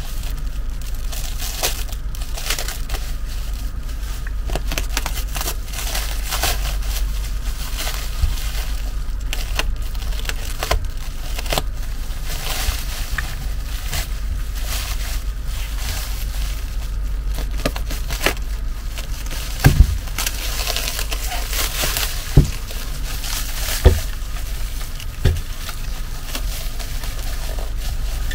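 Plastic stretch wrap being peeled, torn and crinkled off a bed's linear actuator, rustling irregularly throughout. Several sharp knocks, the loudest sounds, come in the second half, with a steady low hum underneath.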